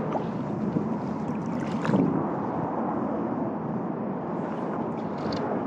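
Steady wind noise rushing over the camera's microphone, with a brief louder swell about two seconds in.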